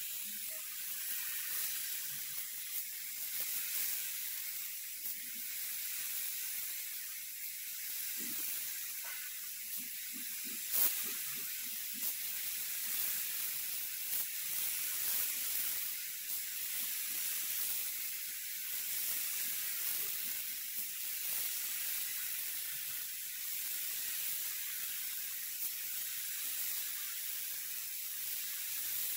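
Gravity-feed spray gun hissing steadily as compressed air atomises paint. A brief click comes about eleven seconds in.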